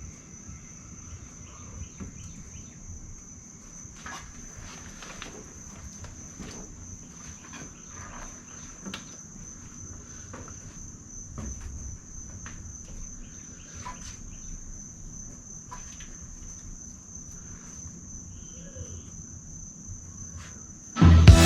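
Insects trilling in one steady high-pitched note over a low rumble, with a few faint clicks. Music starts just before the end.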